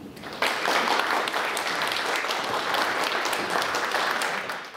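Audience applauding, many hands clapping at once: it swells in about half a second in, holds steady, and starts to fade near the end.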